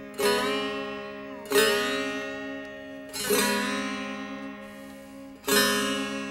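Strings of a plucked lute strummed four times, about every one and a half to two seconds. Each chord rings out and fades, with some notes sliding in pitch while the tuning pegs are turned.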